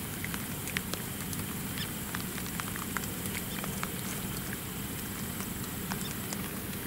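Steady outdoor background hiss with many faint, scattered ticks and clicks.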